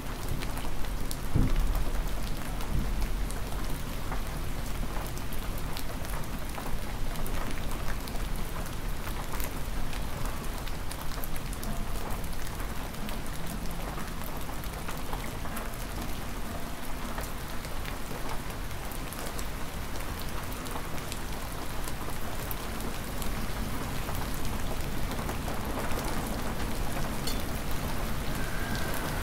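Hard, steady spring rain, with many drops tapping on surfaces and a low rumble underneath; briefly louder about a second in.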